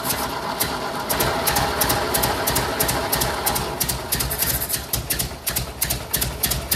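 Freshly rebuilt four-cylinder gasoline engine of a 1958 Ford 821 tractor running at idle on its first test run, valve cover off, with a rapid, regular sharp ticking over the engine note.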